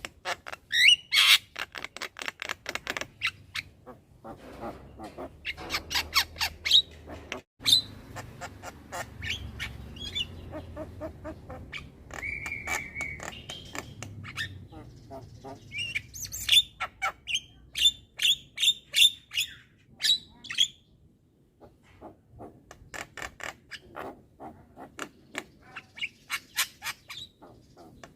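A young Javan myna chattering without pause: rapid strings of harsh clicking notes and squawks, with a short held whistle about halfway through.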